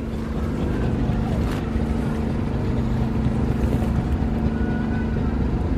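An engine running steadily at an even speed, a low rumble with a constant hum.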